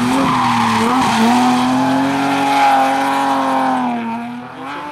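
BMW E30 rally car driven flat out through a bend: the engine sits at high revs, dips briefly about a second in, then holds a steady high note and fades near the end as the car pulls away.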